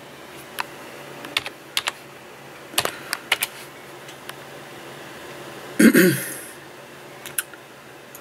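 Irregular taps on a computer keyboard, a few keystrokes at a time with pauses between, and a brief louder noise about six seconds in.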